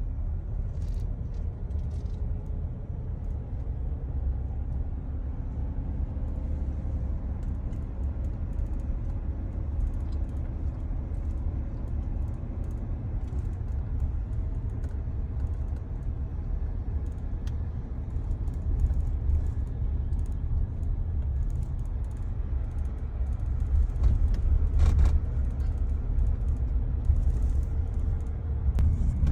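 Car driving, with a steady low engine and road rumble whose pitch drifts slowly up and down.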